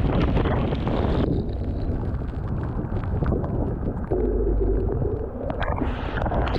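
Strong thunderstorm wind buffeting the microphone in a deep, gusty rumble; the higher hiss thins out about a second in.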